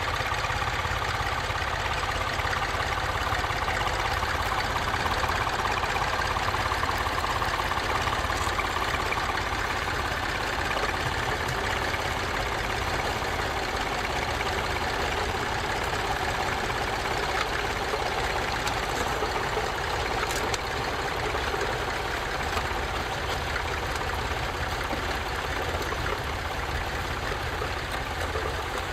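Tractor engine running steadily, a continuous drone with rushing noise over it.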